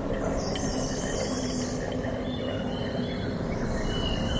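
Forest ambience: birds chirping and a high insect hiss over a steady low rumble.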